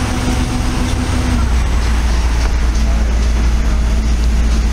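Steady low rumble of street traffic and vehicle engines, with a faint engine hum over it.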